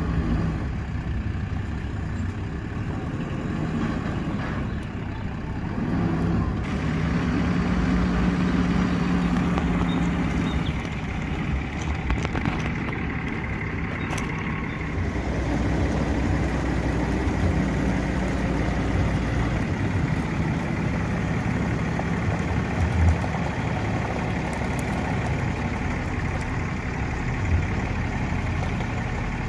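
Engine idling steadily, growing louder for a few seconds about seven seconds in, with a short sharp knock about two-thirds of the way through and another near the end.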